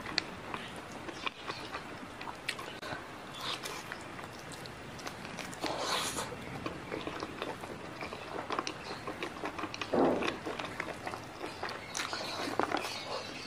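Close-miked eating sounds: fingers tearing and squishing stir-fried squid and rice, with chewing and many small wet mouth clicks. The loudest wet sound comes about ten seconds in.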